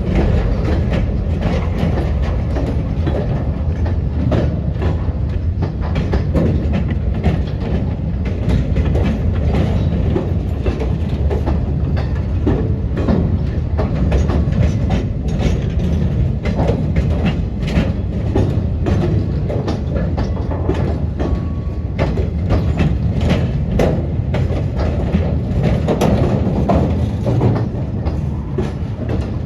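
Train rolling past: a steady low rumble with dense, irregular clicking and clattering of wheels over the rails.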